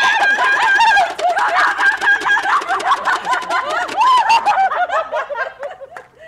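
Two women shrieking and laughing excitedly over a Pie Face game. A long, high squeal is held over the first couple of seconds, then breaks into laughter with scattered sharp clicks, and the laughing dies down near the end.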